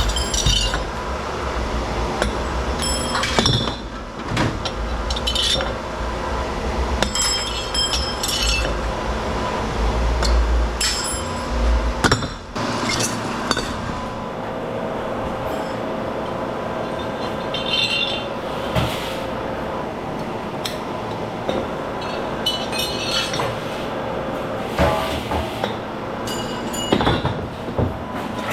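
Scrap metal pieces clinking and clanking against each other as they are handled and tossed onto a pile, in many irregular ringing strikes. Underneath runs a steady machine hum, with a low rumble that stops about twelve seconds in.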